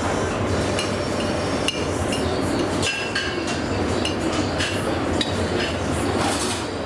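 Metal spoon clinking and scraping against a frying pan as sauce is spooned from it, in many short sharp clinks over a steady background hum.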